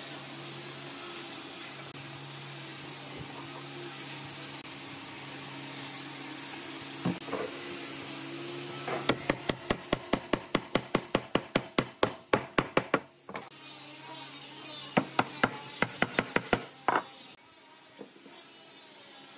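Fast runs of sharp knocks on wood, about five or six a second, as a glued pine leg is tapped down into its joint in the rail: a long run, a pause, a shorter run and one last knock, over a steady low hum.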